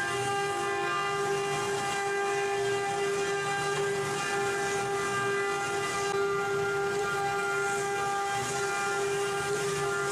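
Single-head CNC router's spindle running with a steady high whine over a hiss, holding one pitch throughout.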